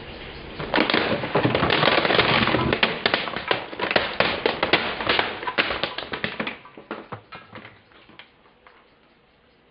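Hard plastic toy robot crushed under a car tyre: a dense run of cracking and crunching starting about a second in, thinning out and fading away over the last few seconds.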